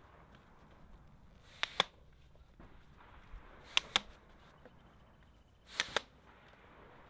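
A tripod being handled, its legs folded together and lifted: three pairs of sharp clicks, about two seconds apart.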